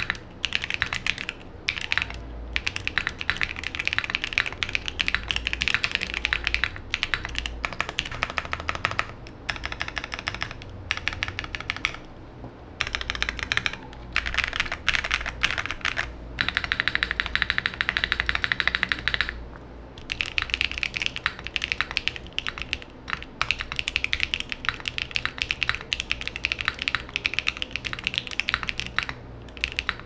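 Typing on a TKD Cycle 7 custom mechanical keyboard with BSUN Raw linear switches, DCX keycaps and an aluminium plate, built with gasket strips and case foam: rapid keystroke clacks with a couple of short pauses.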